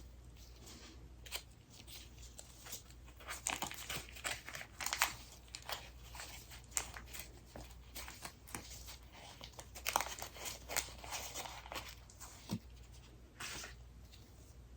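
Plastic food packaging crinkling and tearing as it is opened by hand, in irregular clusters of crackles.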